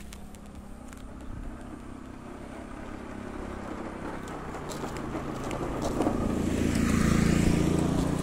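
A small motor scooter's engine approaching, growing steadily louder, passing close about seven seconds in, then starting to fade as it moves away.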